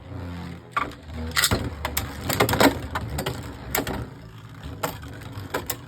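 Two Beyblade Burst spinning tops battling in a plastic stadium: a string of sharp clicks and clacks as they collide and scrape against each other and the stadium wall, with a low hum in the first second.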